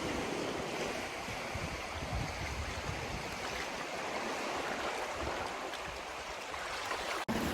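Sea surf washing over rocks and boulders at the shoreline, a steady rushing hiss with irregular low rumbles as the incoming tide's waves break; the sound drops out briefly about seven seconds in.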